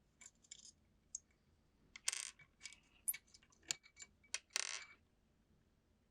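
Small metal parts of a phone screen separator tool being handled on a bench: a run of sharp clicks and taps, with two short scrapes, one about two seconds in and one near the middle.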